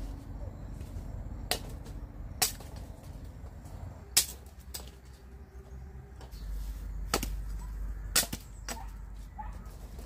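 A blade chopping sugarcane stalks: about half a dozen sharp chops at uneven intervals, the loudest about four seconds in.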